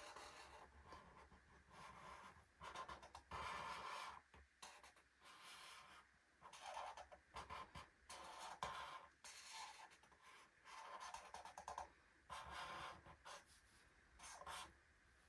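Felt-tip marker drawing lines on the paper page of an activity book: faint scratchy strokes in short bursts with brief pauses between them.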